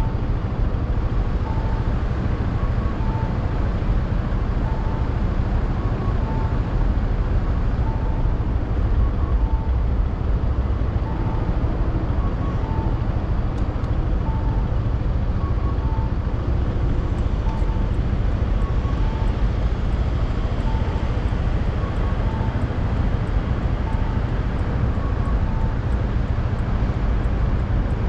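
Riding a Yamaha NMAX scooter: a steady rush of wind and road noise over the scooter's single-cylinder engine. A faint short beep repeats about every second and a half until near the end.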